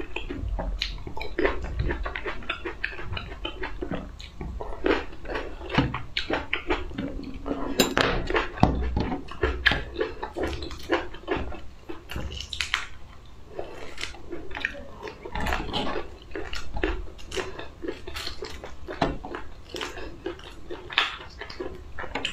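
Close-miked chewing, and the crackle and snap of cooked shrimp shells being peeled off by hand, in many short irregular clicks.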